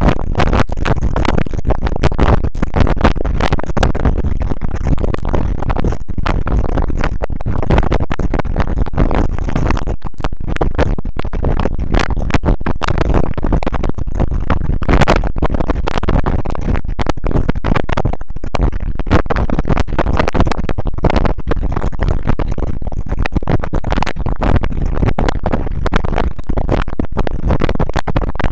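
Steady road and wind noise inside a car cruising at about 80 km/h, with many irregular crackles throughout.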